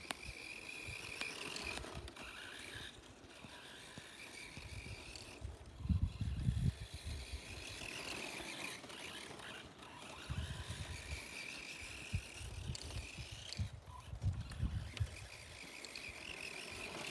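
Radio-controlled monster truck's motor whining as it drives across grass, the whine rising and falling with the throttle. Low rumbling gusts come and go at times.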